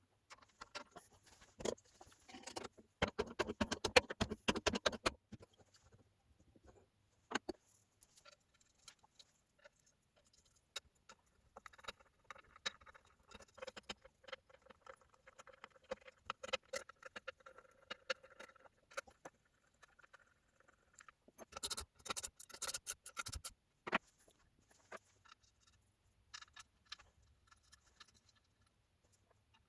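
Small metal parts being handled: bursts of light clicks, rattles and scratching, loudest about three to five seconds in and again around twenty-two seconds in.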